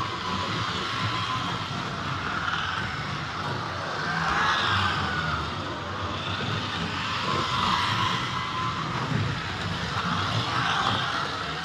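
Electric slot cars lapping a wooden track at constant throttle, their small motors whining. The whine swells and rises and falls in pitch every few seconds as cars pass close by, over a low steady rumble.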